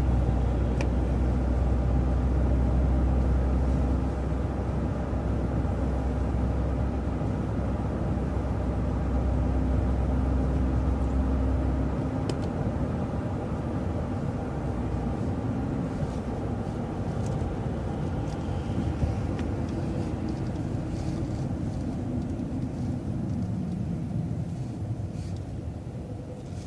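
Vehicle driving, heard from inside: steady engine and road drone that grows quieter as it slows off the motorway exit ramp, with the deep hum dropping away about halfway through.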